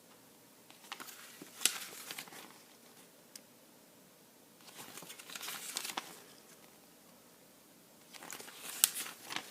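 Paper rustling and crinkling as a thin comic book is handled and turned over, in three short bouts with small clicks and taps.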